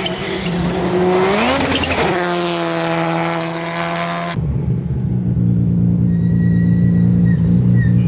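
Rally car engine under hard throttle, its pitch climbing and then holding high. About four seconds in the sound cuts abruptly to a duller, steady engine drone.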